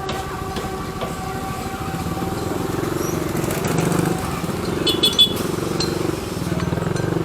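Motor vehicle engine running close by with a steady low throb, as in passing street traffic, and a brief high squeak about five seconds in.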